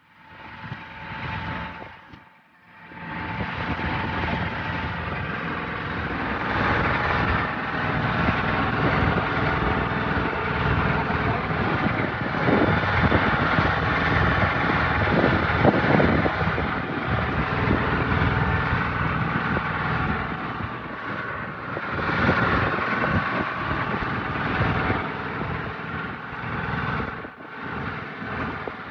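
Small motorboat's engine running steadily as the boat moves over the water. It comes in loud about two and a half seconds in, after a short, quieter broken stretch.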